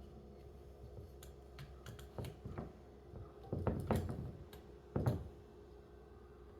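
Scattered light clicks and soft knocks of a golf club being handled and measured in a loft-and-lie machine, with a few closer together about three and a half to five seconds in, over a faint steady hum.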